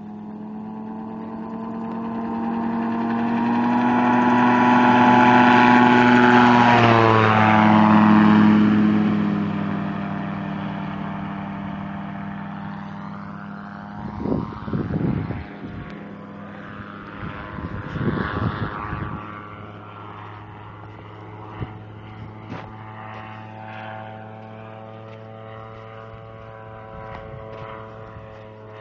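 Light aircraft's propeller engine at full power on its take-off run, growing louder as it approaches, passing close with a drop in pitch about seven seconds in, then fading as it climbs away.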